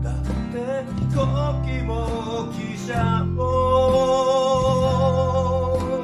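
Home multi-track band playing a Japanese folk-pop ballad: a man sings over acoustic guitar strumming, backed by electric guitar, electric bass and keyboard. A long held note sounds through the second half over a steady bass line.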